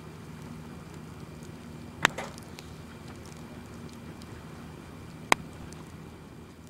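Wood fire burning in a metal fire box, with two sharp pops from the burning logs, about two seconds in and again about five seconds in, over a steady low background that starts to fade near the end.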